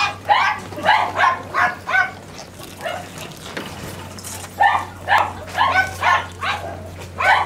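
A dog barking in two quick runs of short, yappy barks, about two to three a second, with a pause in the middle.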